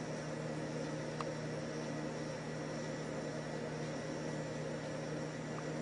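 Steady low electrical or appliance hum with an even hiss of room tone, and two faint small ticks, one about a second in and one near the end.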